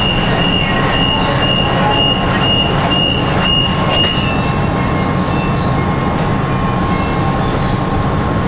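Nanchang Metro Line 2 train heard from inside the carriage: a steady rumble with a constant hum. For the first four seconds a high tone pulses on and off about twice a second.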